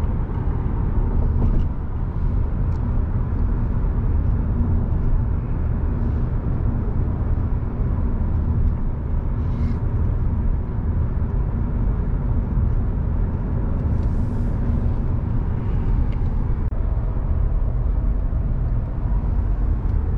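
Steady low road noise inside an Audi sedan cruising on an expressway: the hum of tyres and engine heard through the cabin.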